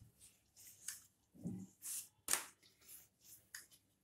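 Wooden rolling pin (belan) rolling out a round of stiff maida dough on a hard counter: faint, scattered rubbing and rustling strokes, with a few light knocks of the pin, the loudest a little after two seconds in.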